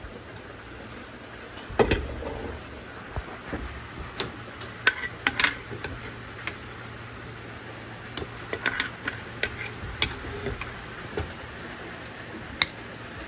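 A plastic spoon scraping and tapping a frying pan and a plate as cooked sweet corn kernels are emptied out: a string of short clinks and knocks, with a heavier knock about two seconds in, over a low steady hum.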